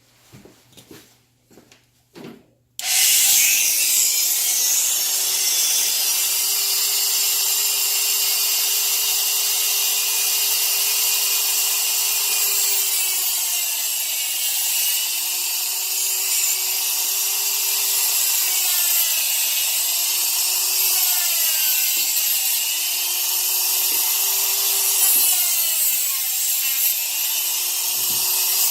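A few light knocks, then about three seconds in a handheld power tool starts up and runs on with a hissing cutting or grinding noise. Its motor pitch sags and recovers again and again as it is pressed into the work.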